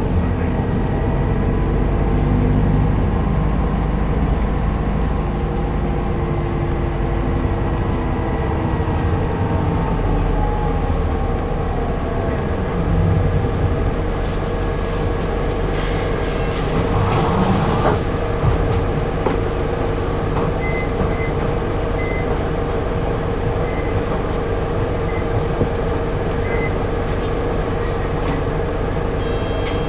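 Keio city bus heard from inside the cabin while in service. The engine and drivetrain run steadily, with a whine that falls in pitch as the bus slows about a third of the way in, then a steady hum. A short high beep repeats several times in the second half.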